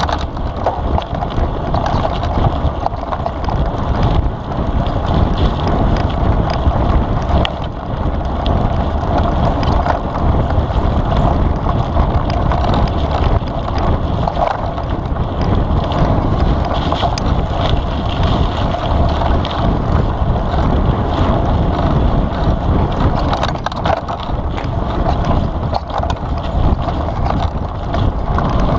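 Mountain bike ridden fast down a dirt forest trail, heard from a camera mounted on the bike: steady wind noise on the microphone over tyre rumble, with frequent small knocks and rattles as the bike goes over bumps and roots.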